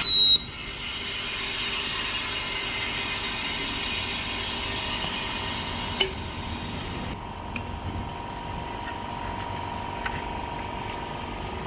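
Bubble-remover (defoaming autoclave) machine for phone screen lamination beeping once, briefly, then venting air with a steady hiss that slowly fades. A single click comes about 6 s in, and the hiss cuts off about 7 s in, leaving a faint hum.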